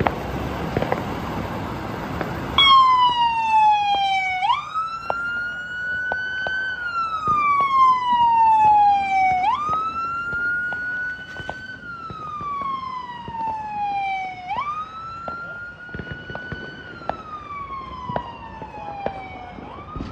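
Electronic siren on a 2023 Ford F-550 fire squad truck sounding the wail for an emergency (code 3) run. It comes in about two and a half seconds in, after a noisy rush with a few clicks. Each cycle is a quick climb in pitch and a long slow fall, repeating about every five seconds, and the siren grows fainter in the last few seconds.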